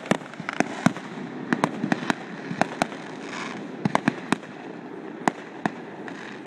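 Fireworks going off: a run of sharp, irregular bangs and cracks, at times several a second, over a steady background hiss.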